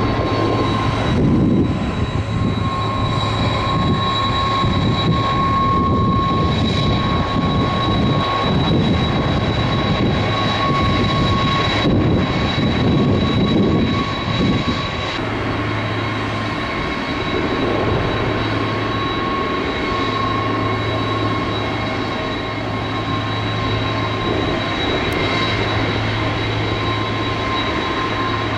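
Jet airliner engines running: a steady high whine over a continuous rushing noise, easing slightly in loudness about halfway through.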